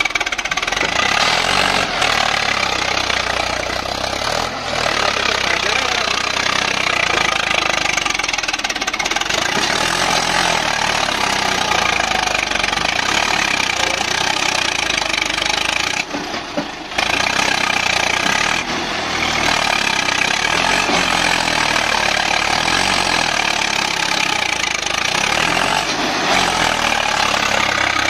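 Swaraj 744 tractor's three-cylinder diesel engine running hard and steady under heavy load while hauling a trolley loaded with soil through mud. There is a brief dip about sixteen seconds in.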